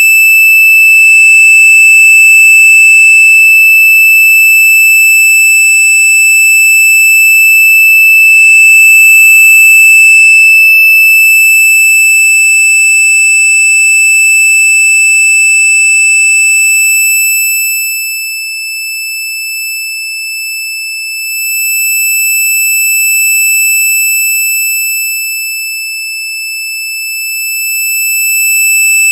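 A continuous, very loud, high-pitched electronic tone with shrill overtones, held at one pitch without wavering; its loudness dips twice in the second half.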